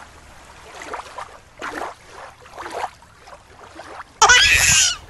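Shallow stream water faintly trickling and splashing. About four seconds in, a loud, high-pitched sound that slides up and down in pitch lasts under a second.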